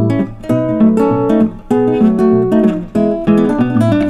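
Background music: acoustic guitar playing a steady stream of plucked notes.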